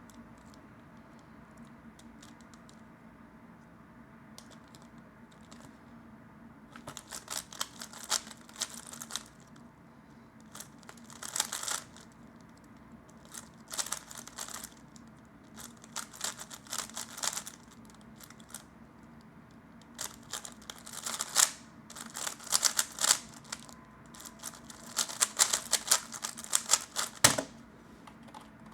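Plastic 3x3 speedcube being turned fast, its layers clicking in rapid bursts with short pauses between them, starting several seconds in. A single thump comes near the end. A faint steady hum runs underneath.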